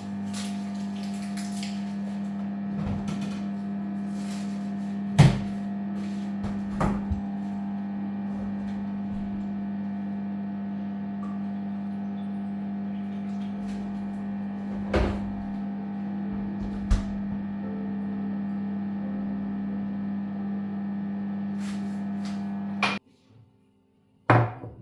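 A mains-powered household appliance hums steadily, with occasional knocks and clicks over it. The hum cuts off abruptly near the end, followed by a couple of knocks.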